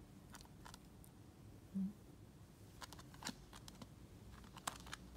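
Faint scattered clicks and small crunches as a Richardson's ground squirrel eats dry food from a dish, with a short low hum about two seconds in.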